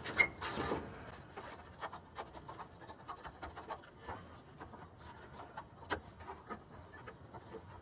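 A new canister fuel filter being slid into its holder and fitted to the fuel lines: light rubbing and scraping with scattered small clicks and taps.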